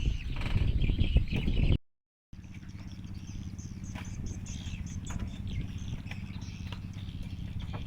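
Outdoor ambience: a loud, rough noise for the first couple of seconds, cut off abruptly by a half-second gap, then a steady low hum with faint bird chirps over it.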